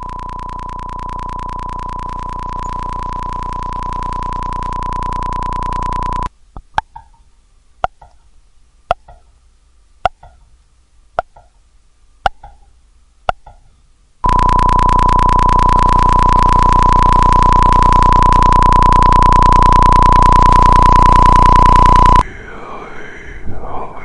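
Electronic sound effect: a steady, buzzy high tone swells for about six seconds and cuts off abruptly. About eight sharp clicks follow, roughly a second apart, then the tone returns louder for about eight seconds and cuts off. Wavering, warbling tones run near the end.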